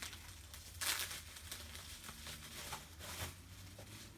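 Parcel packaging being opened by hand: wrapping crinkles and tears in short, irregular bursts, the strongest about a second in.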